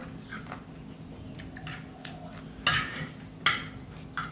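Metal cutlery clinking and scraping against a ceramic plate, with two sharper clinks about two-thirds of the way through.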